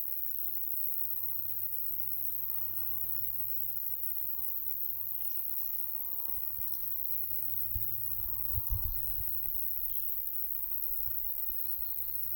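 Insects chirring steadily at a very high pitch, in the way of summer crickets or grasshoppers in grass, with short scattered bird calls over them. Wind buffets the microphone with low rumbling thumps about eight to nine seconds in.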